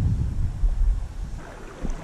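Legs wading through a shallow creek, water swishing and sloshing in a low rumble that eases off about a second in, with a few faint splashes near the end.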